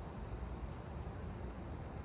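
Steady, even rumble of city road traffic, with no single passing vehicle standing out.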